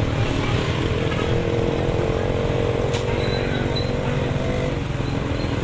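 Small vehicle engine running steadily, as heard while riding along a road. A higher steady whine rides over it through the middle and stops about five seconds in.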